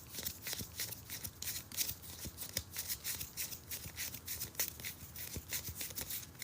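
Baseball trading cards being flipped through by hand: a quick, irregular run of soft flicks and slides, several a second, as card slips past card.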